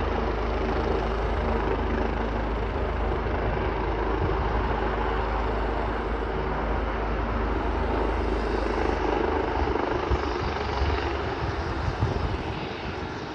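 Police helicopter's engines and rotor running on the ground: a steady low hum under a broad whine. About nine seconds in, the steady hum breaks up into an uneven rumble.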